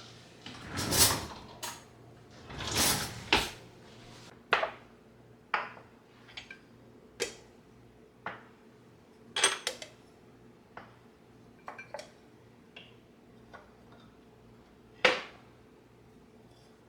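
Household objects being handled and set down on hard surfaces: two longer scraping or sliding sounds in the first few seconds, then about a dozen separate knocks and clinks spread through the rest.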